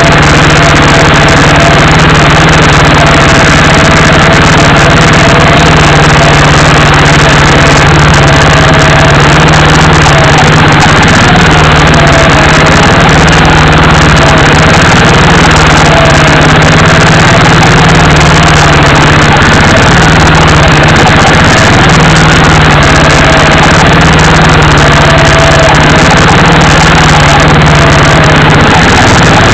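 Off-road vehicle's motor running steadily, with a faintly wavering whine over a low drone. It is heard loud and distorted through the microphone of the camera mounted on the vehicle as it drives through brush.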